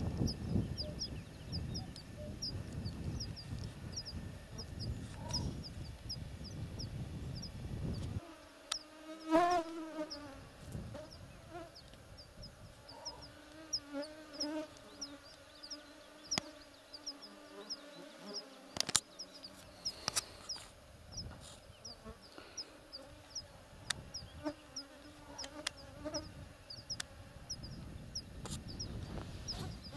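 Meadow ambience with insects buzzing, a wavering pitched drone that comes and goes. Over it runs a steady series of short high chirps, about two a second. A low wind rumble stops abruptly about eight seconds in.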